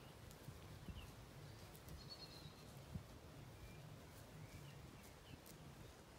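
Near silence: quiet pasture ambience with a faint low rumble and a few faint, distant bird chirps.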